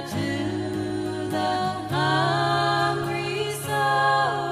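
Gospel hymn sung by a sisters' vocal group in close harmony. The voices hold long, slow notes and change chords together every second or two.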